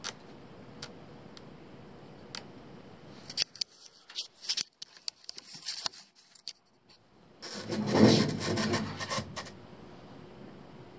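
Rubbing and scraping handling noises with scattered sharp clicks. The loudest part is a scrape lasting about two seconds, near the middle-to-late part, after a few seconds of near quiet.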